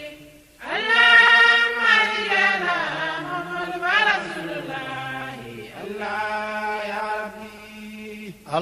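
Unaccompanied Islamic devotional chanting: long, drawn-out sung notes of a repeated refrain invoking Allah and the Prophet Muhammad. The voice breaks off briefly about half a second in, then comes back strongly.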